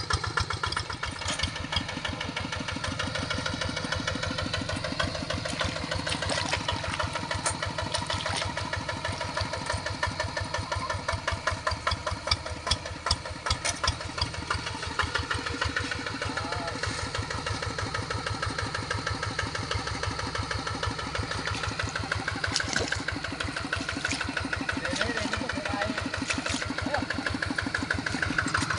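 Diesel engine of a large paddy-field tractor running steadily under load while ploughing, with a fast, even chugging; the beat grows louder and more uneven about halfway through.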